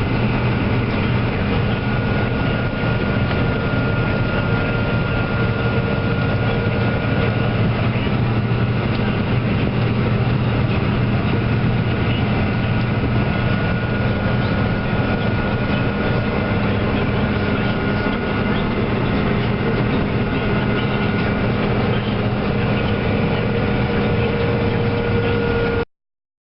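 Heavy farm machinery engine running steadily under load, a constant hum with a few held tones over mechanical noise. It stops abruptly near the end.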